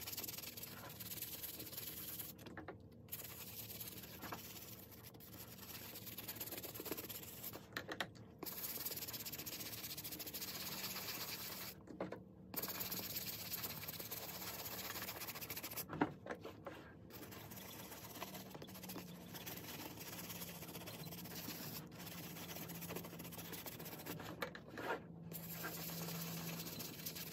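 Small bristle brush scrubbing shampoo lather into wet suede: a steady scrubbing hiss of bristles over the nap, broken by a few short pauses.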